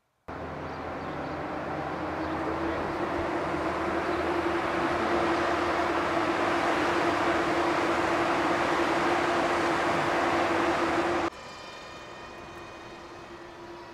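Cupra e-Racer electric touring car driving: a steady electric-motor whine over tyre and wind noise, growing louder over about ten seconds. Near the end it drops suddenly to a quieter, thinner whine that fades.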